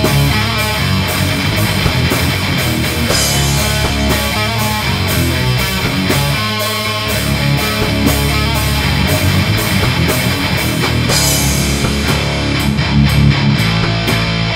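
Heavy metal instrumental: electric guitars playing over a drum kit keeping a steady fast beat, with cymbal crashes about three seconds in and again about eleven seconds in.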